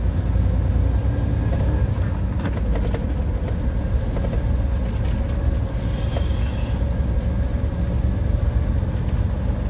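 Semi-truck's diesel engine running with a low steady rumble, heard inside the cab while it pulls a B-train trailer slowly through a tight turn. A brief high hiss comes about six seconds in.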